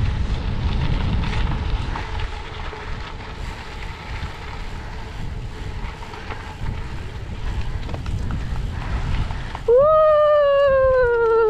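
Wind buffeting the microphone while riding. Near the end, a loud, long drawn-out tone starts, slowly falling in pitch, and a second lower tone joins it.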